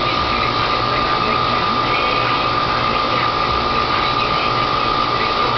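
A running machine making a steady drone, with a constant high whine over a low hum.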